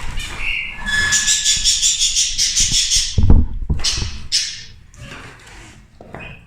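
Zebra finches chirping in a busy, high chatter for about three seconds, then a loud thump and a few short scrapes and knocks as a wooden nest box is handled and fitted into place.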